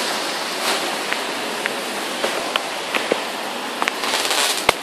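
Heavy rain falling steadily, with scattered sharp ticks of drops striking close by and one louder sharp click near the end.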